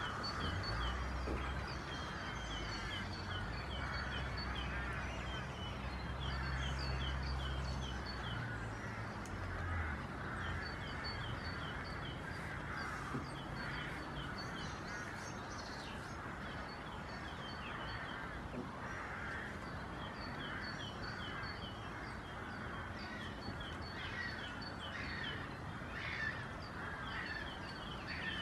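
Birdsong: a small songbird repeats a quick, high two-note phrase in runs of a few seconds, with short pauses between runs, over a steady background hiss.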